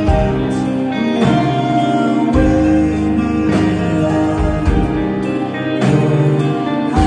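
Live band playing: electric guitar, keyboard, steel guitar and drums, over a shifting bass line with regular cymbal strokes.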